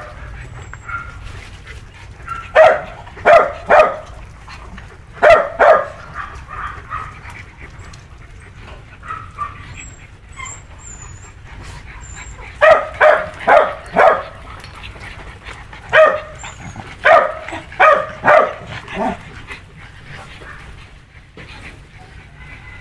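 Dog barking in short bouts of one to four quick barks, with a faint whine between bouts.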